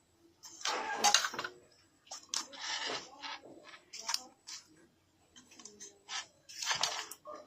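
Irregular clicks, clatter and scraping of small hard objects being handled, in bursts with short pauses between them.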